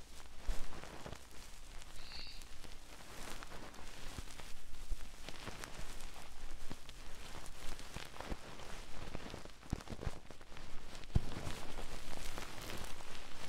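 Fast, dense scratching on an ASMR microphone: a continuous crackle of many small scratches, with a few sharper knocks, including a loud one about 11 seconds in.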